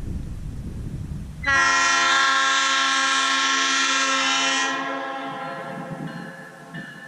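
Nathan PK3 three-chime locomotive air horn, with new-cast P1 and P4 bells and a raised-letter K1L bell, sounding one long chord blast. It starts suddenly about a second and a half in after a low rumble, holds steady for about three seconds, then fades out over about a second and a half.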